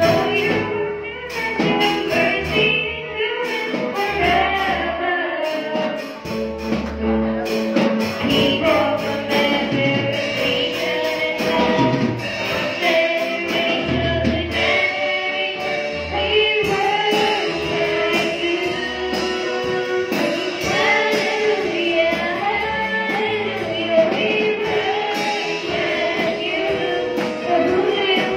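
Gospel worship song sung by a woman into a microphone, over instrumental backing with bass and drums.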